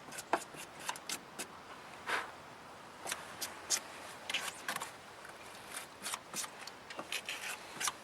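Battery terminal cleaner's wire brush scraping corrosion off a car battery's positive terminal post in short, irregular strokes.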